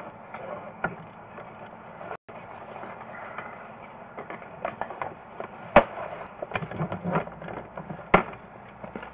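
Irregular clicks and knocks over a steady background noise, with two sharper, louder knocks about six and eight seconds in: the rattle of sewer inspection camera gear and push cable as the camera is moved through the pipe.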